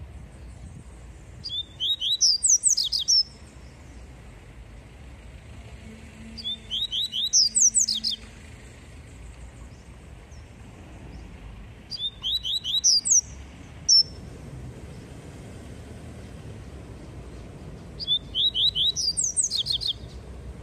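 Caged papa-capim seedeater singing its 'tui tui' song: four short phrases about six seconds apart, each a quick run of repeated notes that leaps into higher, sweeping notes. A faint low rumble runs underneath.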